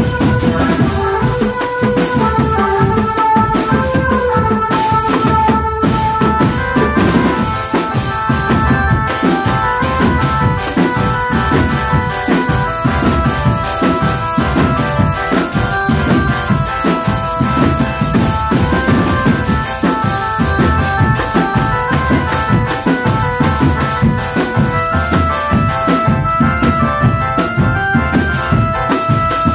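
A drum band playing: marching drums beating a fast, steady rhythm under a melody line of held notes.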